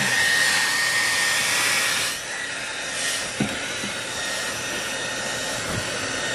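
Handheld hair dryer blowing with a steady motor whine, used to thaw a frozen holding tank in a travel trailer's underbelly; it grows a little quieter after about two seconds. A couple of faint knocks come in the second half.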